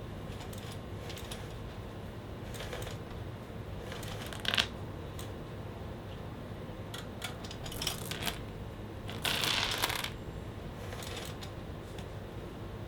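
Bicycle chain clinking and scraping against the rear disc brake caliper as the wheel is turned by hand, in irregular short bursts with the longest scrape about nine seconds in. The chain is rubbing because it sits too close to the caliper.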